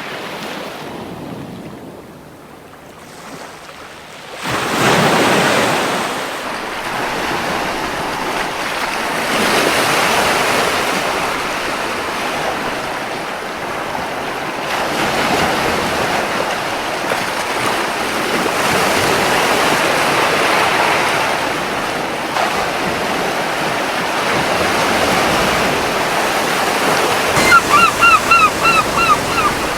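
Ocean waves washing onto a beach: a lull for the first few seconds, a wave breaking about five seconds in, then steady surf. Near the end a gull calls in a quick run of short, sharp notes, about four a second, the loudest sound here.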